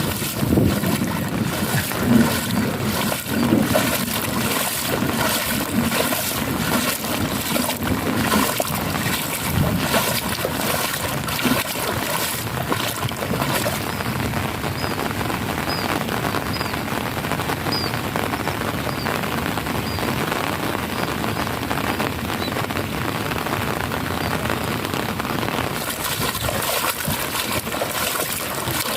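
Steady rain falling, a dense patter of drops with trickling water. Near the middle, faint short high chirps repeat about once a second.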